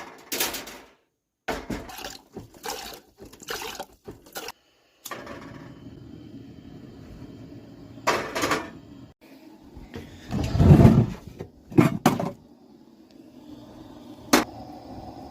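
Cooking preparation in a small kitchen: pots, dishes and utensils clattering and knocking in short bursts, with a loud thump about eleven seconds in and a sharp click near the end. A steady low hum runs underneath from about five seconds.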